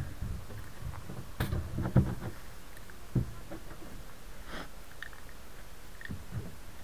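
Gloved hands working at the wheel under a velomobile's shell: a few dull knocks, the loudest about two seconds in, then some rustling.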